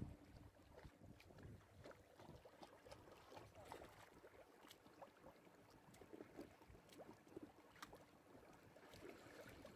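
Faint water splashing and lapping from a Portuguese water dog paddling through pool water, with irregular small splashes.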